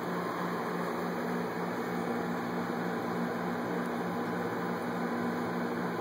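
A steady low mechanical hum with an even hiss underneath, unchanging throughout.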